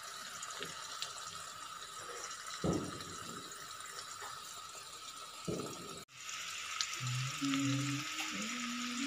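Common carp frying in hot oil, a steady sizzling hiss, with two dull thumps partway through. A few notes of background music come in near the end.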